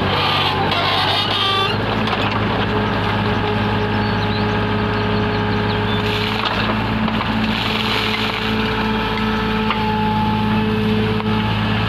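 Backhoe's diesel engine running steadily at working speed. Noisier rasping stretches come near the start and again from about halfway in, typical of the machine working material.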